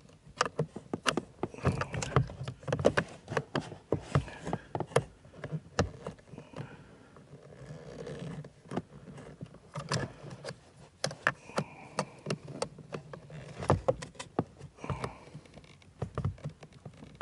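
Screwdriver tip clicking, tapping and scraping against a metal retaining clip and the plastic blower motor housing while the clip is pried at. Many irregular sharp clicks and knocks, unevenly spaced.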